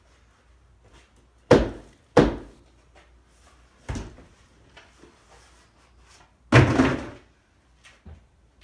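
Plastic worm-breeding trays knocking against the wooden worm bin as they are emptied and handled. Two sharp thunks come less than a second apart, a weaker one follows, and a longer clatter comes near the end.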